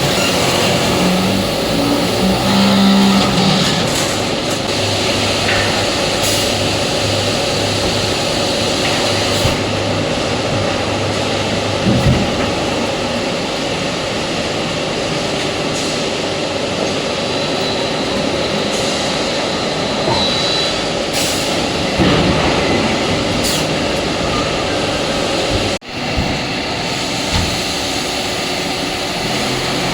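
Hydraulic concrete slab press running on a factory floor: a steady machine hum with hiss, and a few short knocks and clanks, about twelve and twenty-two seconds in.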